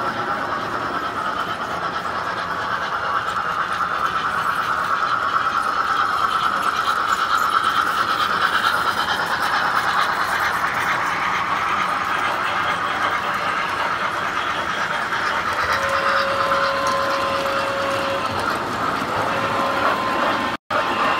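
Tinplate Standard Gauge toy trains running on metal three-rail track: a steady rattling rumble of wheels and motors over the rails. A held steady tone joins in about three-quarters of the way through.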